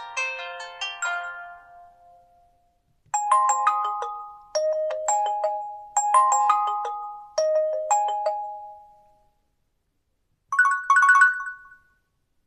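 Nokia 2780 Flip ringtones playing one after another: a quick run of bell-like notes fades out in the first two seconds; after a pause a new tone plays four short chiming phrases, each fading; near the end a brief cluster of two or three quick chimes.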